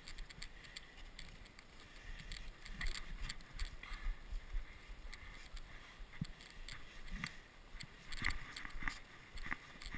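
Snow crunching in an uneven run of footstep-like crunches, the loudest near the end.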